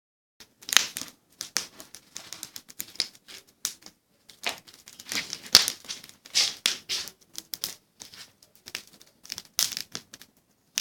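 Small wood campfire crackling, with irregular sharp snaps and pops in clusters and short pauses between them.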